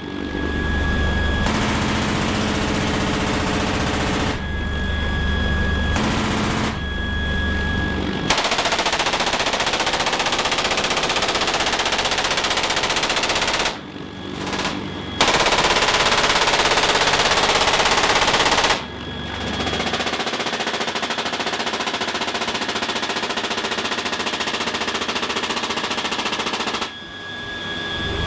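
GAU-21 .50-calibre machine gun firing long rapid bursts from a CH-53K King Stallion helicopter, over the helicopter's steady engine whine and low rotor hum. The sound changes abruptly several times.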